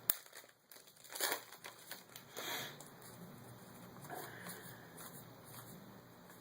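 Foil wrapper of a Yu-Gi-Oh booster pack crinkling and tearing as it is opened, in a few short bursts of rustling.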